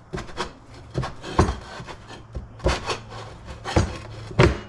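A soaped 3.00-10 mobility scooter tire being pushed and worked onto its wheel rim by hand: irregular knocks and rubbing. There are about eight knocks over the few seconds.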